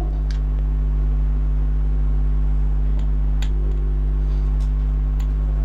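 Steady low electrical hum with a few faint taps of a marker against a whiteboard as it writes.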